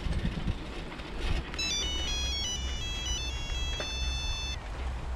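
Mobile phone ringtone: a simple electronic beep melody of single notes stepping up and down in pitch, starting about a second and a half in and stopping about three seconds later. Under it, a steady low rumble.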